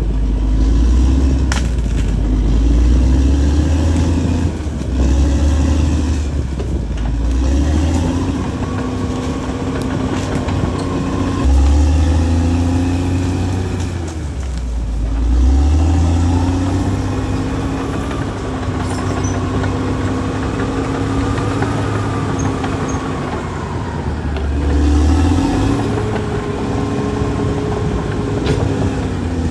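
Caterpillar D6R XL bulldozer's diesel engine running hard, its pitch rising and easing off again every few seconds as the dozer works.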